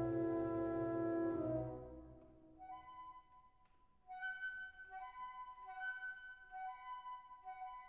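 Background music only: a held chord that fades out about two seconds in, then a light melody of short notes.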